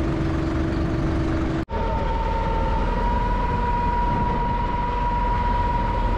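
Motorboat engine running steadily, with a constant whine over rushing water and wind noise. After a brief dropout about two seconds in, the whine sits at a higher pitch.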